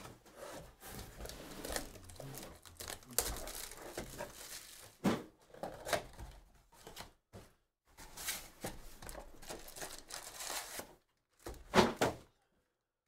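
Cardboard trading-card box being opened and its card packs pulled out and handled: papery crinkling and tearing, with a couple of dull knocks against the table, the loudest a close pair near the end.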